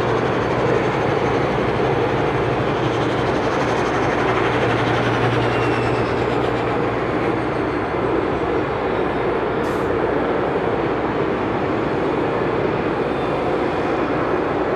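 Dash 8-300 turboprop engines running on the ground with a steady, loud drone. Faint high whines slowly fall in pitch around the middle, typical of a turbine spooling down at engine shutdown.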